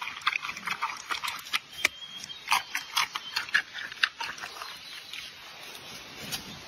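Giant panda chewing a bamboo shoot: irregular crunching and snapping bites, thinning out about five seconds in.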